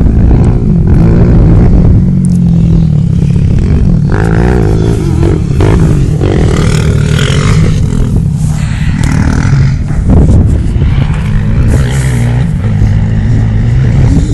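Off-road vehicle engine running loudly, its pitch rising and falling with the throttle, with clattering and scraping over the top.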